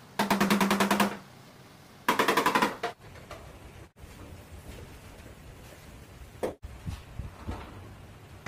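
Rapid hammer taps on a car's sheet-metal trunk lid during dent repair, about ten a second, in two loud bursts of roughly a second each. Afterwards only faint workshop noise and a few soft knocks.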